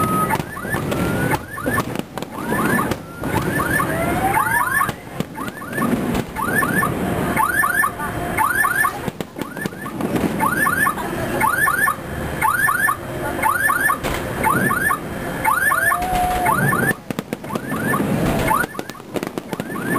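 Aerial fireworks shells bursting overhead in a rapid series of bangs with rumble. Over them a high chirping sound repeats in quick clusters of short sweeps.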